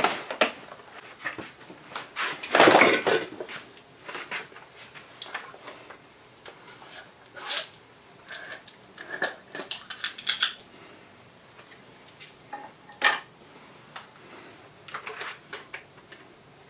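Irregular clinks and knocks as a peanut butter jar and an electric hand mixer with its beaters are handled at a kitchen counter, the loudest clatter about two to three seconds in.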